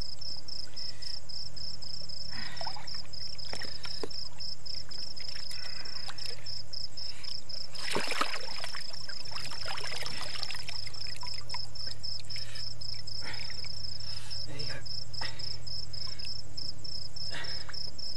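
Night insects, crickets, chirping in a steady fast pulse, with a low steady hum beneath and a brief rush of noise about eight seconds in.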